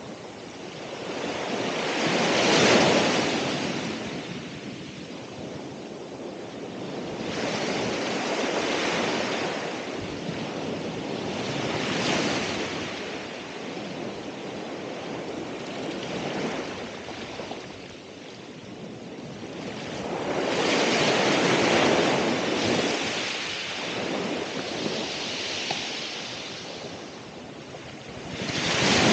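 Ocean waves breaking and washing on the shore, swelling and falling every four to six seconds, with some wind on the microphone.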